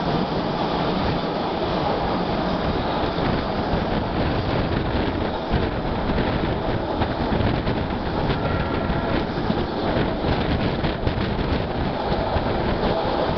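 Passenger coach of the Vitória-Minas Railway (EFVM) running at speed: a steady rumble of wheels on the rails with rushing air through the open window, and a run of sharp clicks about halfway through.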